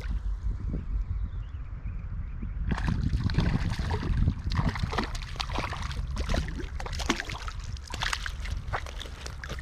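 Water splashing and sloshing in quick irregular bursts from about three seconds in, as a small hooked trout is brought in and handled at the surface. A steady low rumble runs underneath.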